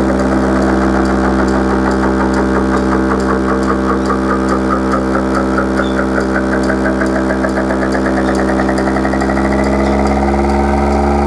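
Miniature car-audio speaker system playing the bass section of a sound-test track: one steady low tone with a buzzing edge and a fast flutter in the treble, held without a break.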